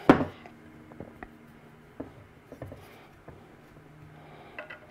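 Small clicks and taps of a screwdriver working the handguard screws on an AR-15 upper, with a sharper knock at the very start and a scattering of light ticks after it.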